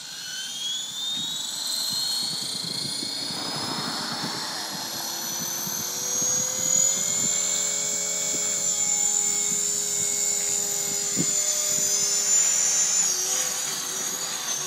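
Align T-Rex 500 electric RC helicopter spooling up. The whine of its motor and rotor head rises steadily in pitch over the first several seconds, then holds at head speed over the rush of the blades. Near the end the pitch dips and wavers as it lifts off.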